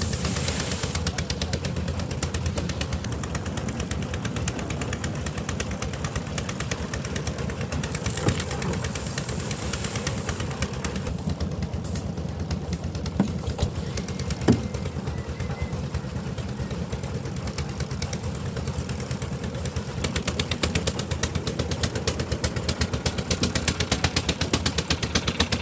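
Engine-driven concrete mixer running steadily, its engine firing in a fast, even pulse, with a couple of sharp knocks in the middle and getting a little louder near the end.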